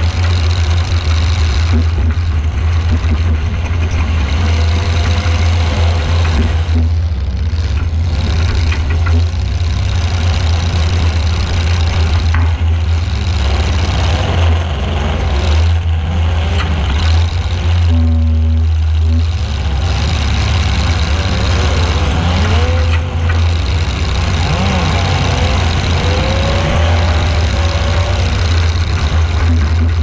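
Demolition derby car engines running and revving, heard close up from a camera mounted on a car, with a heavy steady drone and pitch rising and falling as the engines rev.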